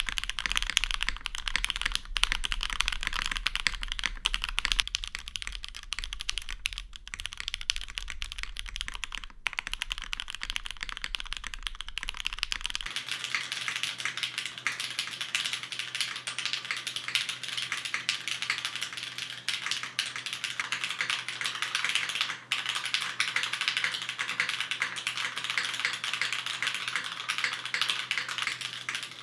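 Fast, continuous typing on custom mechanical keyboards with lubed, polished Cherry MX Black Hyperglide linear switches and GMK keycaps, a dense stream of key clacks. About 13 seconds in, a low hum stops and the clacking turns brighter.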